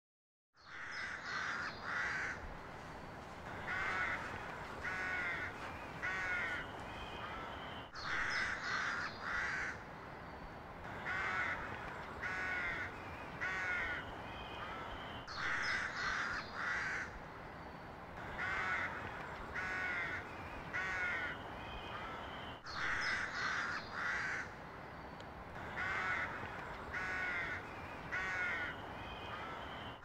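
Crows cawing over and over, in bursts of several harsh calls, over a steady low hiss. It is a looped sound effect that repeats about every seven and a half seconds, starting about half a second in.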